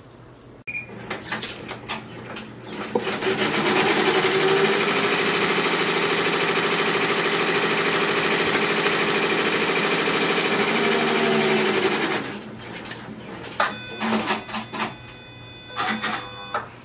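Embroidery machine stitching: a fast, steady run of needle strokes from about three seconds in until about twelve seconds, with shorter stop-start bursts and clicks before and after.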